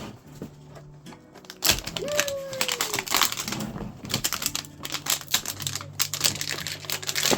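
Plastic toy packaging being pulled and handled, making a quick run of small clicks and crinkles that starts about two seconds in and goes on as the container is worked open.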